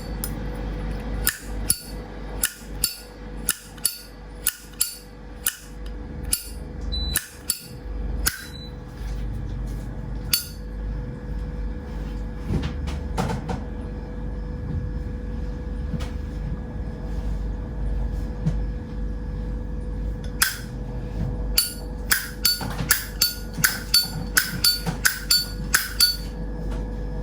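Vintage Zippo lighter's hinged lid flicked open and snapped shut over and over, sharp metallic clicks with a short ring. The clicks come one or two a second at first, thin out in the middle, then come thick and fast again near the end.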